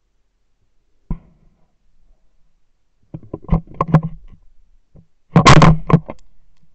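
A single shotgun shot from a Fabarm Axis over-and-under, very loud and about half a second long, fired about five and a half seconds in. Before it come a knock about a second in and a cluster of knocks and clicks.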